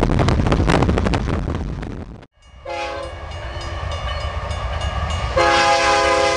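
Loud rushing noise with rapid clatter cuts off about two seconds in. A CPR freight locomotive's multi-note air horn then sounds a steady chord, growing louder about five seconds in: the horn signal for a grade crossing.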